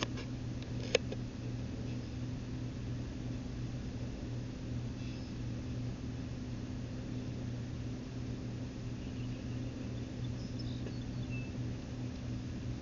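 A steady low mechanical hum, with one sharp click about a second in and a few faint high chirps near the end.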